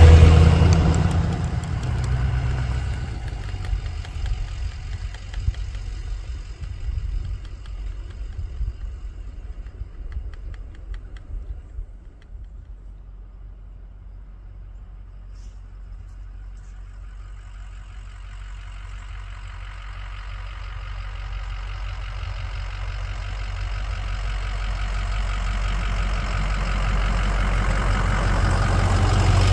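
Lifted Ford dually pickup driving past, its engine fading as it pulls away, then growing steadily louder as it comes back toward the listener near the end.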